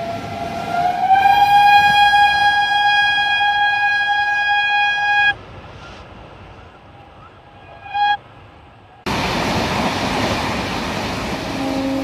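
Indian Railways WAP-class electric locomotive horn sounding one long blast of about five seconds, its pitch rising slightly in the first second. A short toot follows about eight seconds in, as locomotives answer one another's horns. About nine seconds in, a loud steady rushing noise sets in.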